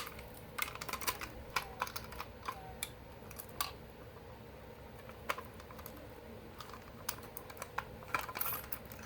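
Scattered light clicks and taps of a plastic fire alarm pull station being handled, irregular, with a sharp click at the start and a quick run of them near the end, over a faint steady hum.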